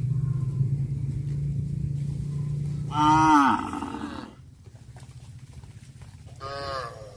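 Cow mooing: a long low hum that opens into a loud call about three seconds in, dropping in pitch as it ends, then a second, shorter moo near the end.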